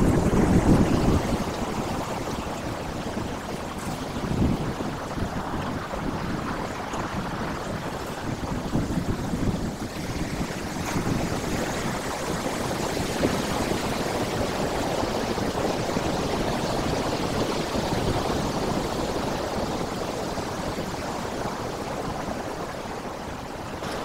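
Sea surf breaking and washing over shore rocks: a steady rushing of water with swells of low rumble, loudest about a second in.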